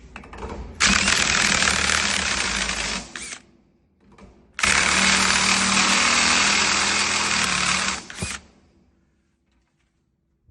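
Power drill running in two long bursts, the first about two and a half seconds and the second about three and a half, with a short pause between.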